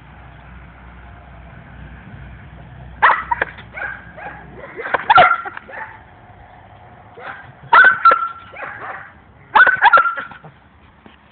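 Young dog barking in four short bursts of one or two barks each, spread over several seconds.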